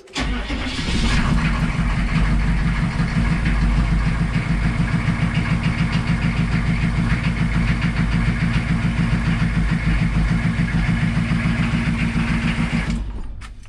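Diesel engine of a retired UPS step-van delivery truck starting and idling loudly with an even pulsing beat, then shut off about thirteen seconds in.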